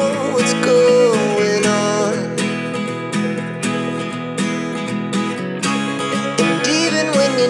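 Music: strummed acoustic guitar with a melody line gliding above it.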